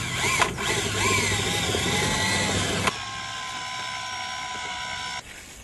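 Electric drill with a paddle mixer running, mixing resin and powder in a bucket. It is louder and uneven for the first three seconds, then runs as a steadier, quieter whine and stops about five seconds in.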